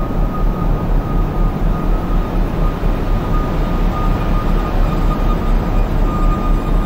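Experimental drone composition: a dense, rumbling drone with a wavering deep bass and one steady high tone held above it.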